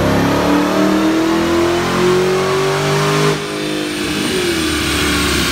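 A car engine revving steadily upward at full throttle in a dyno pull, then cutting off abruptly about three seconds in and dropping back to a lower, falling engine note.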